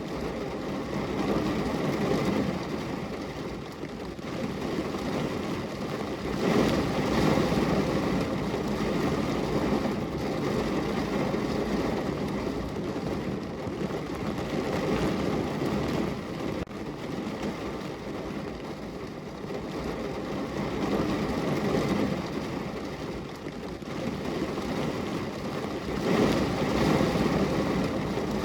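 Heavy rain falling on a car's roof and windows, heard from inside the car: a dense, steady patter that swells louder and eases off every several seconds.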